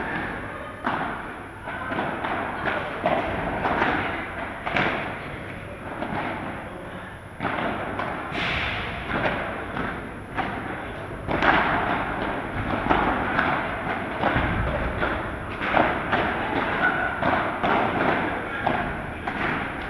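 Padel ball being struck by solid paddle rackets and bouncing off the court and walls during a rally: a string of sharp hollow thuds at irregular intervals, echoing in a large hall.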